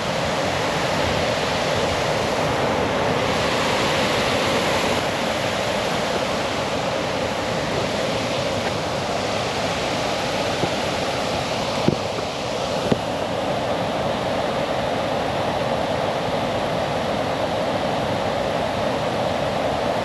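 Steady rushing of Shiraito Falls, a wide, low curtain of water spilling down a rock face. Two brief clicks about a second apart sound midway.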